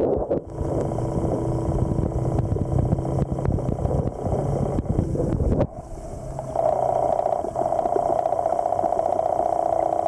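A motor running steadily, heard through the water, a hum with a rapid pulsing whine. About six seconds in it dips briefly, then comes back louder and higher.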